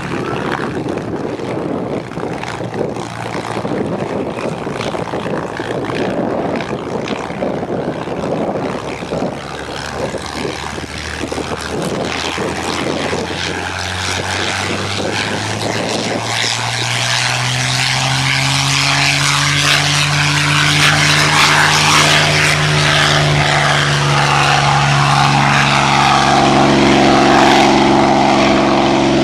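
P-51 Mustang's Packard Merlin V-12 engine running unevenly at low power as it taxis. About halfway through it opens up for the takeoff roll: the engine note rises, then holds steady and grows louder.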